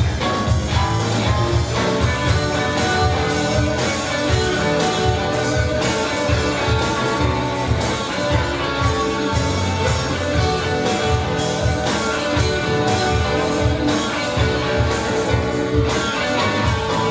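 Live rock band playing: electric guitars strumming over drums with a steady beat.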